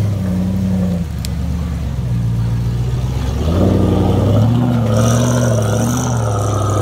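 Off-road trials vehicle's engine revving hard as it climbs through a muddy section, the pitch rising and falling with the throttle. A high whine joins about five seconds in.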